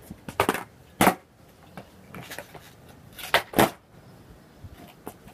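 Skateboard clacking on asphalt: two sharp wooden slaps in the first second or so as the board is set down, then two more about a third of a second apart past the middle, the tail pop and landing of an ollie attempt.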